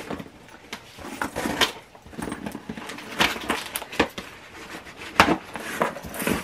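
Packing tape being sliced with a cutter along the top of a large cardboard box, with scraping and rustling of the cardboard and several sharp clicks.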